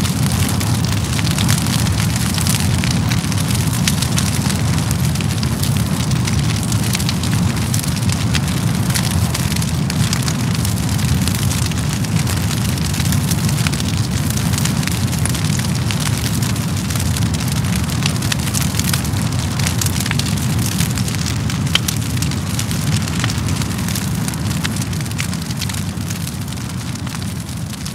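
A title-sequence sound effect: a steady, dense crackling hiss over a low rumble, like rain or fire, fading slightly near the end.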